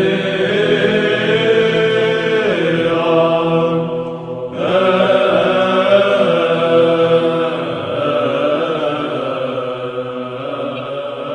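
Orthodox church chant: voices singing a slow, sustained melody over a steady low held drone, with a short break about four seconds in before the chant resumes.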